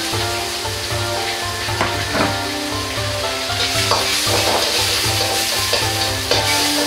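Sausage and onion sizzling in hot oil in a carbon-steel wok while a metal wok ladle stirs and scrapes them, with a few sharp scrapes of the ladle on the pan. Background music with a steady beat runs underneath.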